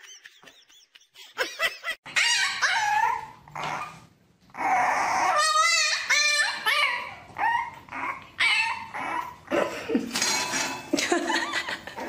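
A dog barking and whining in a run of short high yaps, with a longer wavering whine about halfway through.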